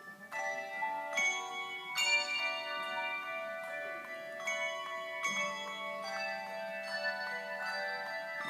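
A handbell choir playing chords: several handbells struck together, their notes ringing on and overlapping, with fresh strikes every second or so. A lower bell joins about five seconds in.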